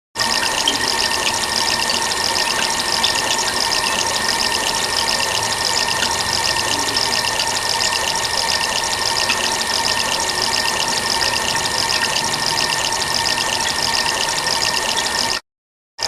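Water splashing and running continuously, with a fast, fluttering texture and a faint steady tone underneath. It cuts off abruptly near the end.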